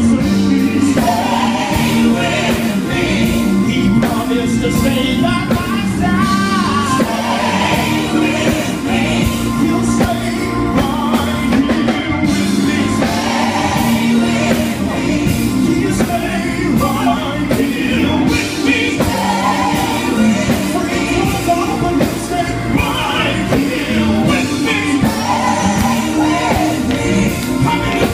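Live gospel group singing into microphones over a band accompaniment with a steady beat, amplified through a PA.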